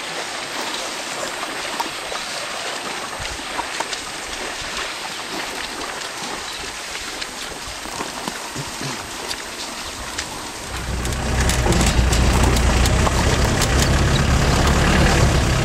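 A steady hiss of outdoor background noise, then about two-thirds of the way in the open Land Rover safari vehicle's engine comes in with a loud, steady, low drone that lasts to the end.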